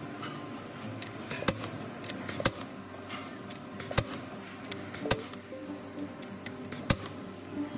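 Factory press workstation: steady machine hum with sharp clicks every second or so, five of them louder than the rest.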